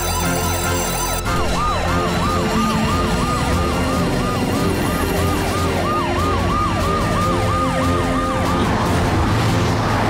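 Cartoon alarm siren: a rapid rising-and-falling wail, about three to four sweeps a second, starting about a second in and stopping near the end, over background music.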